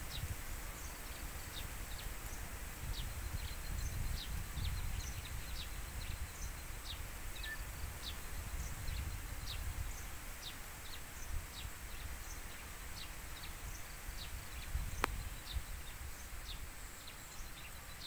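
Wind buffeting the microphone as an uneven low rumble, with small birds chirping throughout in short, high, falling chirps about two a second.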